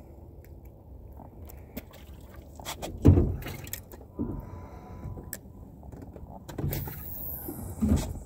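Handling knocks in a small fishing boat over a steady rumble of wind on the microphone, the loudest a sharp knock about three seconds in, with smaller knocks near the end.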